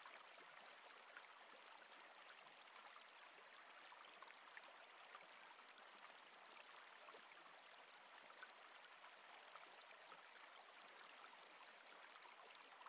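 Faint, steady running water of a river, a soft even babbling.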